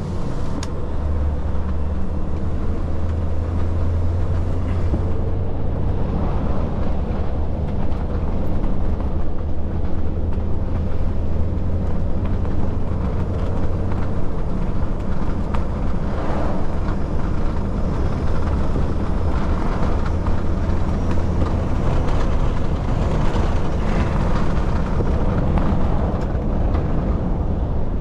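Truck engine running steadily while driving, a steady low drone with road and tyre noise.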